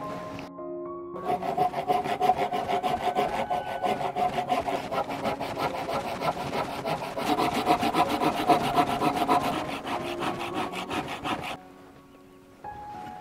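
A handsaw cutting through a bamboo pole in quick, even back-and-forth strokes. The sawing starts about a second in and stops near the end, with background music underneath.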